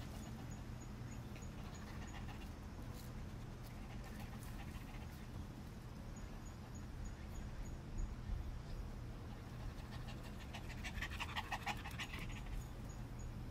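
A small dog panting rapidly, loudest for a couple of seconds near the end, over a steady low background hum.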